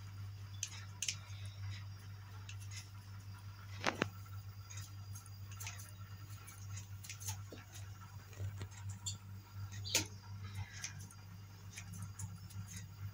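White sandwich bread torn by hand into small pieces that drop into a glass bowl: faint tearing and scattered light clicks, with two sharper clicks about four and ten seconds in, over a steady low hum.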